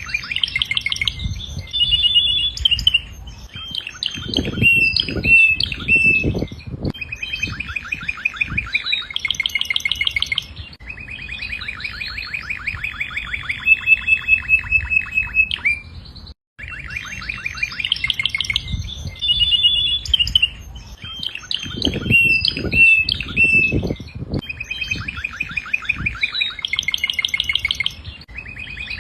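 Domestic canary singing a long song of fast trills and rolling phrases, broken by short pauses, with a few low thuds in between.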